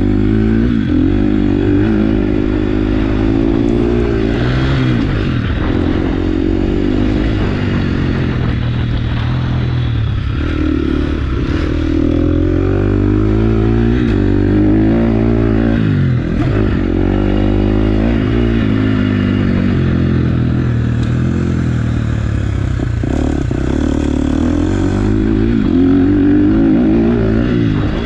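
Motocross bike's engine under way on a dirt track, revving up and backing off again and again, its pitch climbing and dropping every few seconds.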